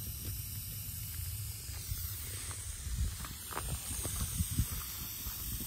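Outdoor ambience: a steady hiss over a low, uneven rumble, with a few brief low swells in the second half.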